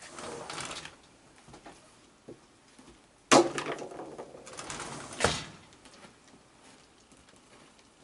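A raccoon dabbling its paws in a plastic bucket of water on a wooden deck, splashing and knocking the bucket: a short noisy scrabble at the start, then a sudden louder clatter and splashing a little over three seconds in that lasts about two seconds and ends with a sharp knock.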